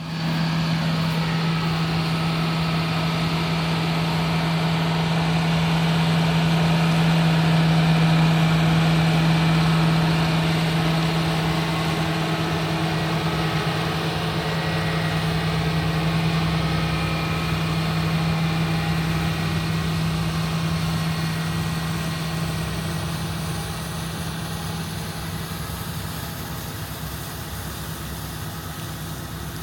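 Large farm tractor's diesel engine running steadily with a strong low hum. It grows louder to about eight seconds in, then slowly fades.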